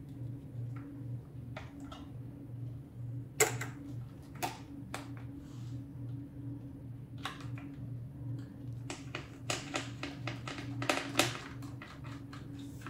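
Scattered plastic and metal clicks and knocks as connectors and parts are handled and pulled inside an opened ventilator chassis, with a quick run of them between about nine and eleven seconds in. A steady low hum lies underneath throughout.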